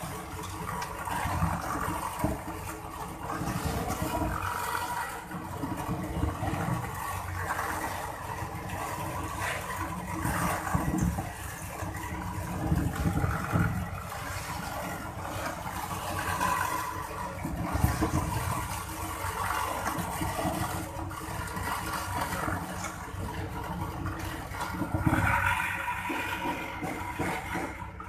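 Excavator at work, its engine running under an irregular rushing, splashing noise that swells and fades every few seconds.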